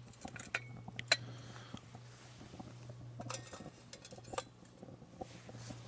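Metal clinks and rattles as a stainless steel cook pot with its lid is set down onto a stainless wood-pellet stove: two sharp clinks in the first second or so, a short clatter about three seconds in, and one more clink soon after.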